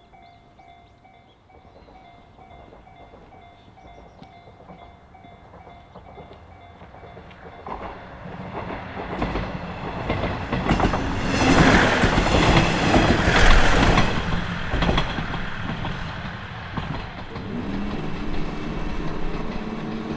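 A Japanese level crossing's warning bell rings steadily while a train approaches, then the train passes through the crossing, loudest about halfway through, with the clickety-clack of its wheels over the rail joints before it fades away.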